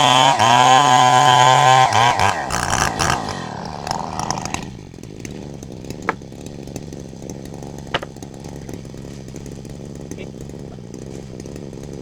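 Two-stroke chainsaw running at high revs, its pitch wavering under load as it cuts wood. About two seconds in, the throttle is released and the revs fall away over a couple of seconds to a steady idle. Two sharp knocks follow during the idle.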